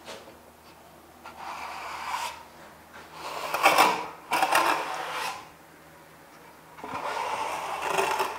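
Flat steel trowel scraping over Kerdi fabric membrane, pressing it into wet thinset mortar on a shower wall to push out air and excess thinset. Several scraping passes about a second long each, the loudest about halfway through.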